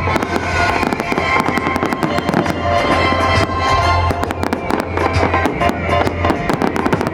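Fireworks display: many shells bursting and crackling in quick succession over loud music with a steady bass line.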